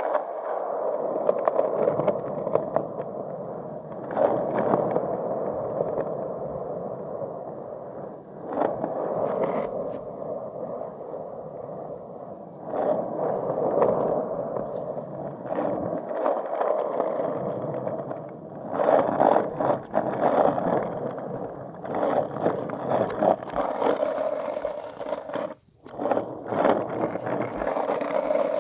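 Skateboard wheels rolling on concrete: a steady rumble that swells and eases every few seconds, with scattered sharp clicks. It cuts out for a moment near the end.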